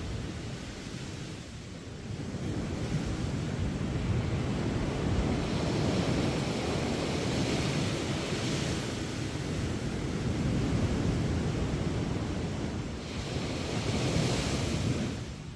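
Sea surf on a beach: waves break and wash up the shore, the hiss swelling and easing every few seconds, loudest about halfway through and again near the end.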